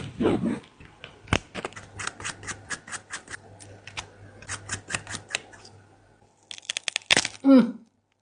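A rapid, irregular run of sharp clicks and taps from hand tools working on a phone, about four or five a second, then a short pause and a quicker, louder cluster of clicks near the end, over a faint steady hum.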